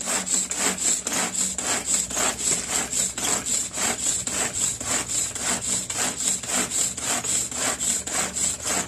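Hand-operated food grinder grinding soaked rice fine: a steady run of rasping, scraping strokes at about four to five a second.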